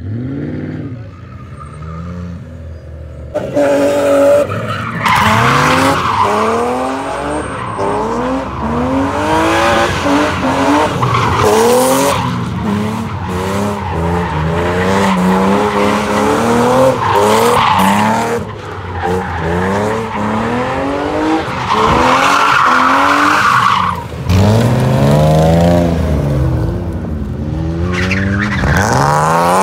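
Car drifting: its engine revving up and down again and again as the tyres squeal in long bursts. It gets much louder about three seconds in.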